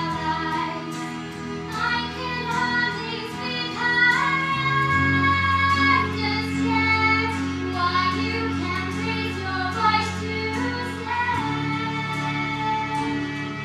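A young girl singing through a handheld microphone over backing music of held chords and a light steady beat. Her long sung notes waver slightly.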